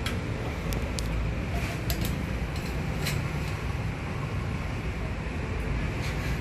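Steady low background rumble, with a few light, sharp clicks in the first three seconds.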